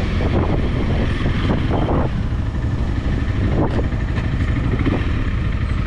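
Honda CRF300L's single-cylinder engine running steadily while the motorcycle is ridden through town.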